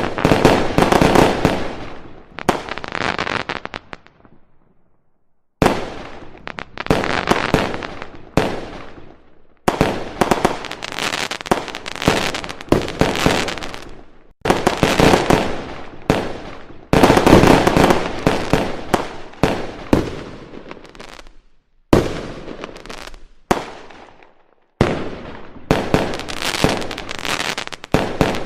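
Aerial firework shells bursting in a dense barrage of bangs and crackle. It comes in volleys a few seconds long that break off sharply and resume, with two brief lulls.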